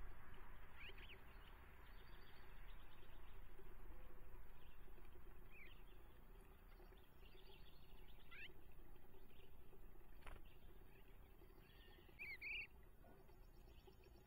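A few short, high songbird chirps, scattered and faint, the clearest about twelve seconds in, over a steady faint hiss. A single sharp click comes about ten seconds in.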